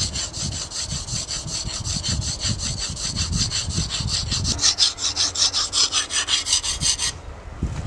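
TBS Boar knife with a Scandinavian grind stroked rapidly back and forth on a flat sharpening stone, several strokes a second, stopping about seven seconds in. The second side of the blade is being ground to raise a burr.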